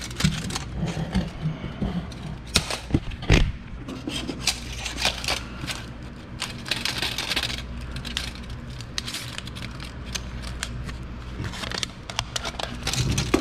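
Tape measure being handled, its blade clicking and scraping on a concrete floor in irregular short clicks and rattles, over a steady low hum.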